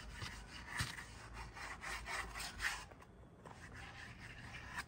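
Brush scrubbing the wood of a log stump: a run of irregular rough rubbing strokes that grow fainter after about three seconds.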